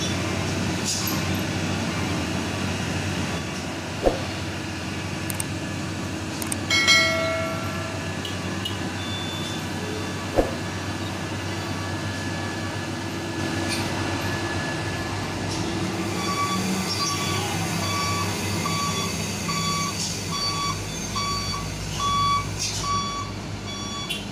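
Heavy truck's diesel engine running steadily, with a short honk about seven seconds in. From about sixteen seconds a reversing alarm beeps about one and a half times a second as the truck backs up.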